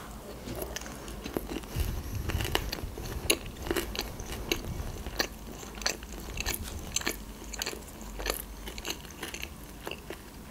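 Close-miked chewing of a crumb-coated fried sushi roll, with many small irregular crunches and wet mouth clicks.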